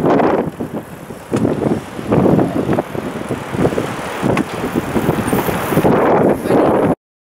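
Wind buffeting the microphone in irregular gusts, mixed with the road noise of bicycle tyres rolling on tarmac. The sound cuts off abruptly to silence near the end.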